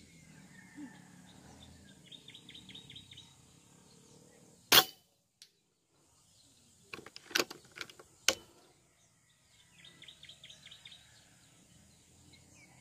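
An air rifle with an A6 barrel fires once about five seconds in, a single sharp crack. Two lighter sharp clicks follow a few seconds later. Twice, a bird chirps in a quick run of short notes.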